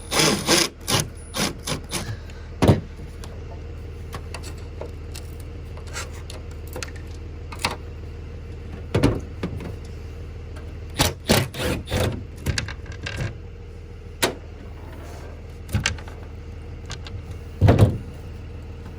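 Irregular clinks, knocks and scraping of hand tools working on corroded bolts and metal parts of a truck, over a steady low hum.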